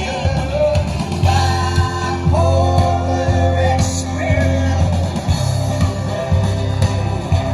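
Rock song with singing, guitar, bass and drums.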